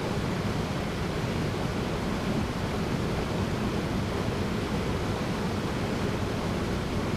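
Small waterfall splashing into a rocky pool, a steady rushing of falling and churning water.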